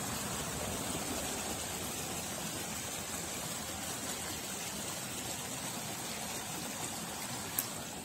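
Creek water flowing, a steady even rush. A single short click near the end.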